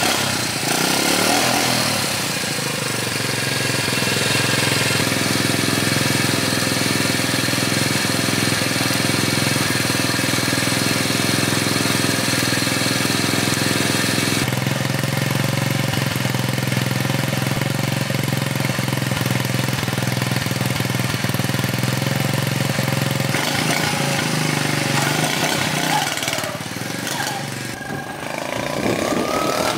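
1980 Honda Chaly CF50's 49 cc four-stroke single-cylinder engine running at a steady idle. In the last few seconds it revs up with a rising pitch as the moped pulls away.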